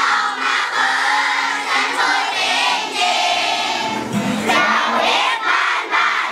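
A large group of children singing together.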